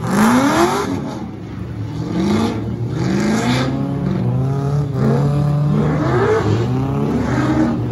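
Drift cars' engines revving on track, the pitch climbing again and again as the throttle is opened. From about halfway in, another engine holds steady revs underneath.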